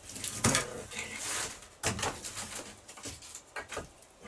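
Split firewood knocking and clattering as it is handled: a handful of sharp wooden knocks, the loudest about half a second in.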